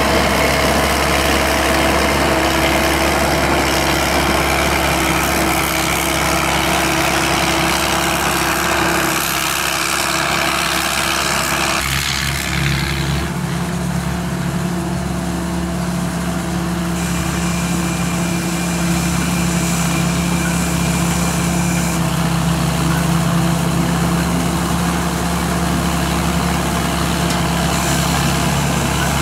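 Combine harvester's turbocharged 260-horsepower engine running steadily, with abrupt changes in its tone about nine and twelve seconds in.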